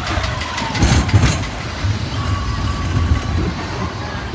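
A large vehicle's engine running with a low, uneven rumble.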